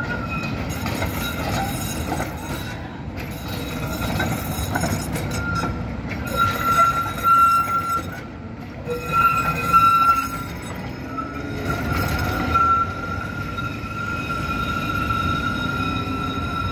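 Trams' steel wheels squealing in the rails as they take a curve: a steady high-pitched squeal, loudest about halfway through, over the low rumble of the trams rolling along the track.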